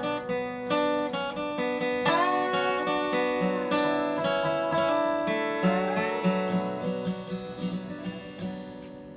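Instrumental dobro (resonator guitar) music: plucked notes with sliding bends, fading out over the last few seconds.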